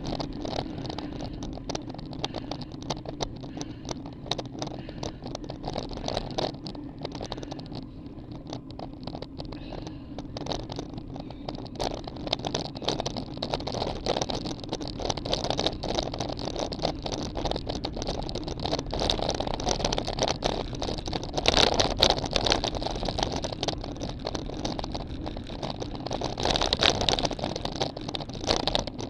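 Wind rushing over the microphone of a bike-mounted camera on a moving road bicycle, with tyre road noise and a constant fine rattling through the bike. It gets louder about two-thirds of the way through and again near the end.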